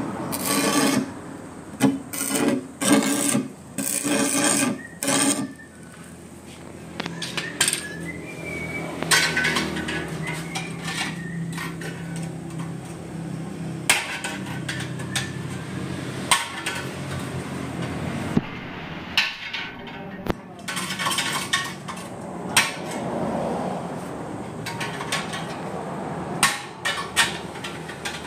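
Hammer strikes and metal clanking as sheet-steel muffler and exhaust pipe parts are worked, in a quick series of blows at the start and scattered knocks later. A steady low hum runs through the middle.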